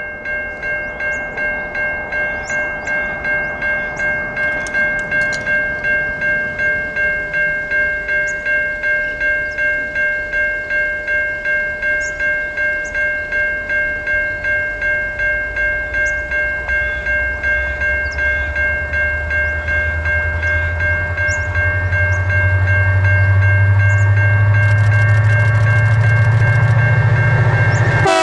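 Level crossing warning bell ringing steadily at about two strokes a second as a freight train approaches. The deep rumble of the leading diesel locomotives, GWB103 and ALF23, grows from about two-thirds of the way in and is loudest as they pass near the end, with birds chirping faintly.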